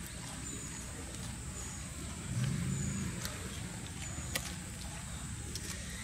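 Low steady rumble that swells for about a second halfway through, with a few sharp clicks over it and a steady high-pitched hiss above.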